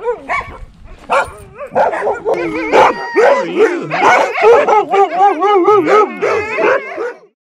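Several chained sled dogs barking and letting out wavering, whining howls over one another, excited and eager for attention. The chorus cuts off suddenly near the end.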